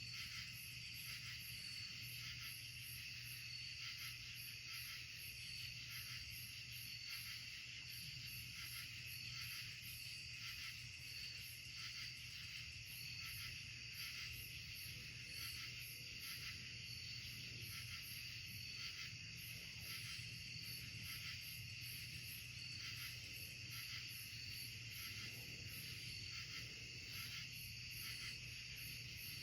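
Chorus of night-singing insects in the woods, a steady, evenly pulsing high-pitched trill, over a faint steady low hum.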